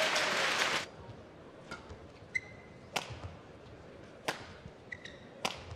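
Crowd cheering and applauding a point, cutting off about a second in. A badminton rally follows: sharp racket hits on the shuttlecock about every 1.3 s, with short squeaks of court shoes on the mat.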